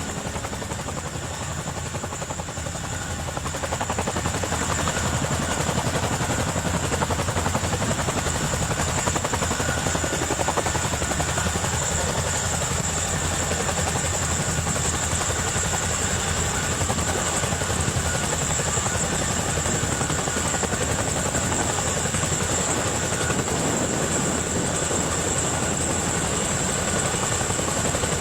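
Helicopter running steadily, its rotor noise carrying a continuous high-pitched whine. It grows louder over the first few seconds, then holds steady.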